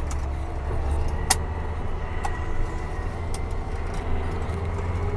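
Tractor engine running with a steady low drone, heard from inside the cab, with a few sharp clicks and rattles; the loudest click comes just over a second in.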